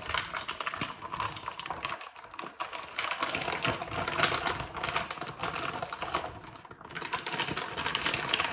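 Thin plastic food bag crinkling and rustling in the hands as food is squeezed out of it into a glass dish, in dense irregular crackles.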